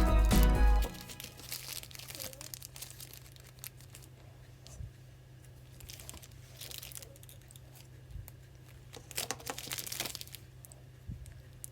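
Quiet, scattered scraping and crinkling from hand-carving an eraser stamp: a small craft knife cutting into the rubber block and paper being handled, in short clusters after music cuts off about a second in.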